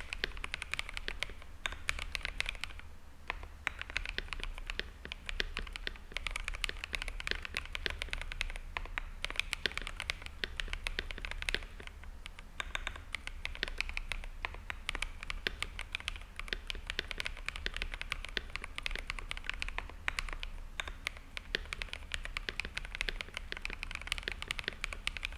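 Typing on an Akko PC75b mechanical keyboard fitted with Akko CS Jelly Black linear switches lubed with Krytox 205g0, its stabilizers balanced, band-aid modded and lubed. Fast, continuous keystrokes run in long bursts, with brief lulls about three, twelve and twenty seconds in.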